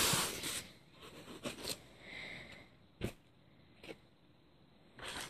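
Faint handling noises of unboxing packaging: a rustle fading out at the start, then scattered light taps and soft rustles of the moulded pulp tray and plastic wrapping.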